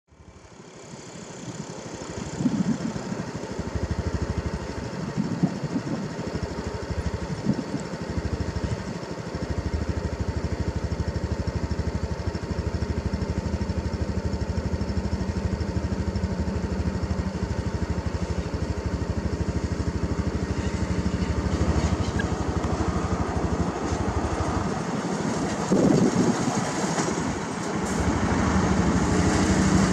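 Nissan Diesel flatbed truck's diesel engine running as the truck drives up toward the listener. It is steady, with a few brief swells, and grows louder near the end as the truck comes close.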